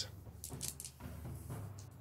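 A few faint, short clicks over quiet room tone, from tabletop game pieces being handled.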